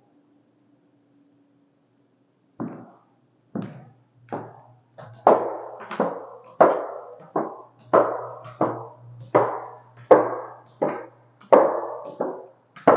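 Footsteps going down wooden stairs: a steady run of hollow knocks, about one and a half a second, starting a couple of seconds in and growing louder toward the bottom.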